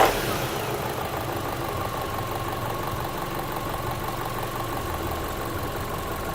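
Chevrolet Cruze engine just after starting, dropping from its start-up flare into a steady idle, with a thin steady whine over the running engine.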